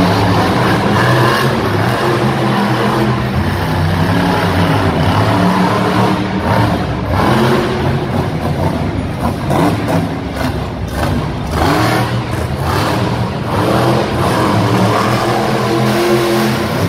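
Monster truck's supercharged V8 revving hard, its pitch climbing and dropping again and again as the truck accelerates and launches off the dirt jumps.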